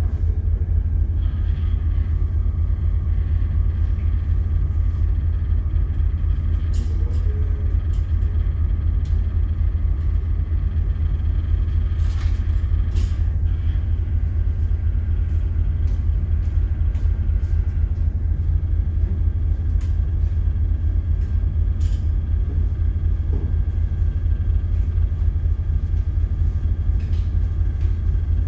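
Steady low rumble of a ship's engine and machinery heard on the bridge, with a few faint clicks.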